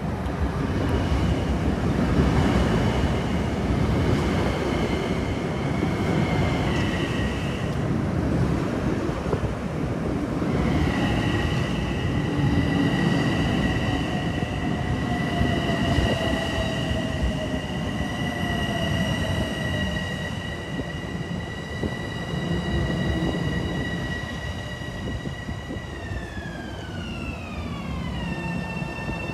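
Long Island Rail Road electric multiple-unit train running into the station, with heavy wheel-and-rail rumble under a steady high electric whine. Near the end the whine falls in pitch as the train slows for its stop.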